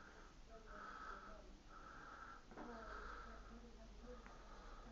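Near silence with a person's faint breathing: four or five short, soft breaths about a second apart.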